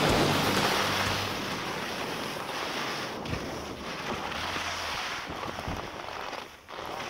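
Wind buffeting the microphone, with the hiss of skis sliding over snow as a ski paraglider lands and slows down.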